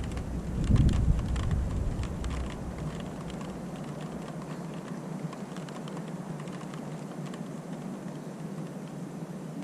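Thunderstorm: a low rumble of thunder about a second in that fades over the next couple of seconds, over steady rain with many small ticks of drops striking a hard surface.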